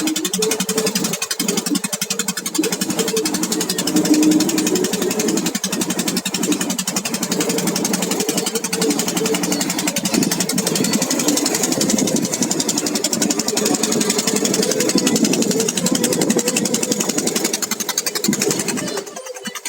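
Fishing boat's engine running steadily, with a fast, even pulse.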